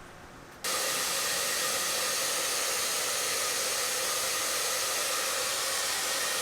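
Steady whooshing air noise from a blower, such as a fan or hair dryer, starting suddenly about half a second in and holding at an even level.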